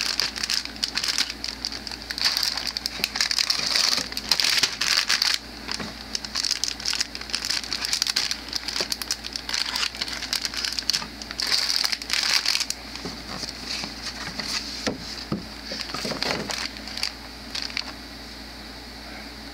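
Clear plastic bags around model-kit parts runners crinkling as they are handled and shuffled. The crinkling comes in dense spells and dies away near the end.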